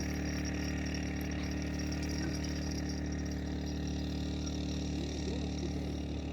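A small engine running steadily at a constant pitch.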